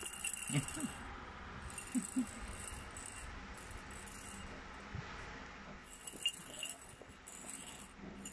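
Plastic cage-ball baby rattle shaken in the baby's hands, rattling in several short bursts.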